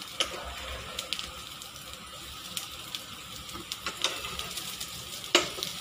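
Oil sizzling and crackling around breaded potato patties (aloo tikki) shallow-frying in a nonstick pan, a steady hiss with scattered small pops. A couple of sharp clicks stand out, the loudest about five seconds in.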